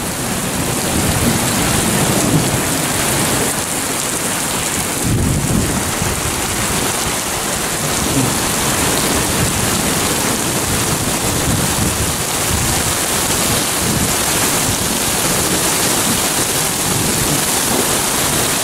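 Heavy thunderstorm downpour pouring onto a street and parked cars: a steady, loud hiss of rain, with a low rumble swelling now and then underneath.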